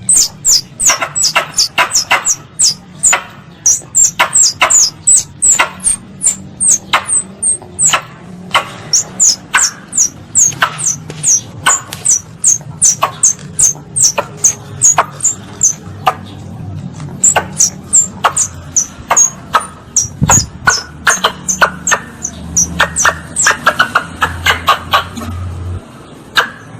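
Squirrel calls used as a hunting lure: a rapid, unbroken series of sharp, high chips, each dropping quickly in pitch, about two to three a second.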